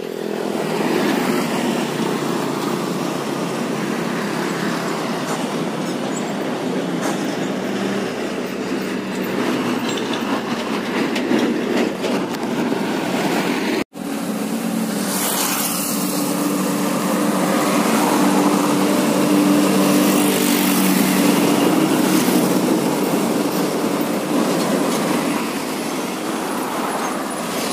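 Heavy diesel trucks running past on a highway: engine drone and tyre noise. A brief dropout about 14 seconds in is followed by more truck traffic with a steadier engine hum.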